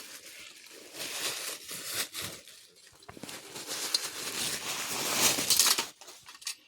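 Crinkling and rustling of packaging with a few small knocks as items are dug out of a storage bin and unwrapped, loudest in two stretches and stopping shortly before the end.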